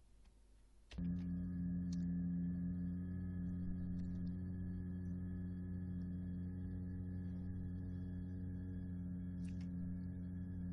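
A human voice in sustained phonation, holding one steady pitch, from a laryngeal stroboscopy recording of the vocal folds vibrating. It starts about a second in and stays flat and even without breaks.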